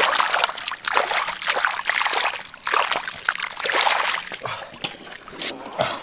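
Shallow muddy water splashing and sloshing in repeated bursts, about five in six seconds.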